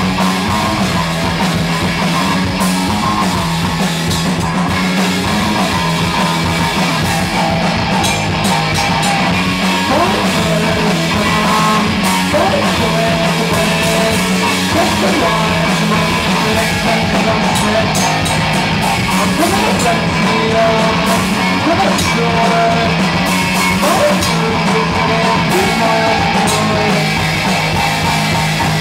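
Rock band playing live and loud, with distorted electric guitars, bass and a drum kit driving a dense, steady wall of sound. A short rising slide recurs every couple of seconds through the middle stretch.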